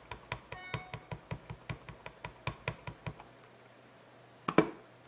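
An ink pad dabbed against a rubber stamp in quick light taps, about five a second, stopping after about three seconds. It is followed by one sharp knock near the end.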